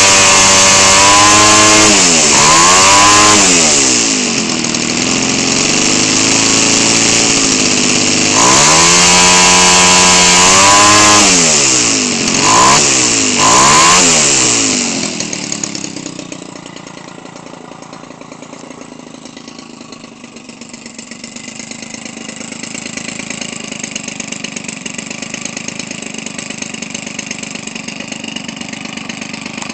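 Weedeater Featherlite 25cc two-stroke engine with a gutted muffler and welded-on pipe, driving a propeller. It runs at high throttle and is throttled down and back up three times, the last time with quick blips. About 15 s in it drops to a steady idle.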